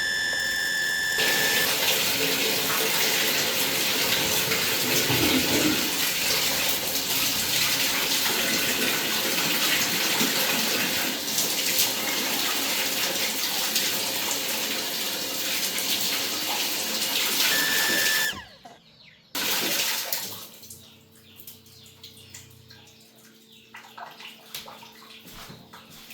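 Water gushing steadily from a tap, loud and even for about eighteen seconds, then cutting off abruptly. A much fainter steady hum follows.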